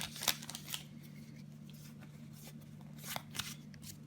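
Pokemon trading cards and a booster pack being handled: brief rustles and clicks in the first second and a couple more around three seconds in, over a faint steady hum.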